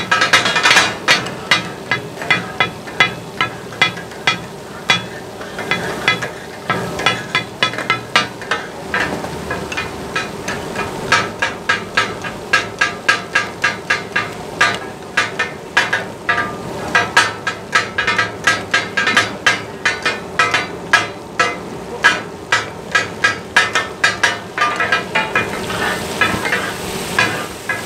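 Two flat metal spatulas striking a large flat iron griddle in rapid, rhythmic runs of metallic clanging as they chop and mix goat offal for taka-tak, over sizzling oil. Near the end the strikes thin out and the sizzling is more prominent.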